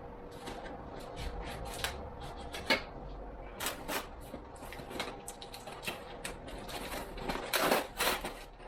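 Bike parts being unpacked from their box: irregular rustling with light clicks and knocks, louder and busier near the end.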